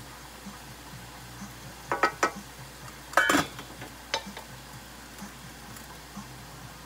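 Cookware clinking on the stove: two sharp taps about two seconds in, then a pot lid clattering down onto a stainless steel saucepan a little after three seconds, and one lighter knock about a second later.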